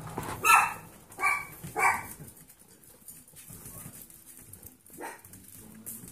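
A six-week-old golden retriever puppy barks three times in quick succession in the first two seconds.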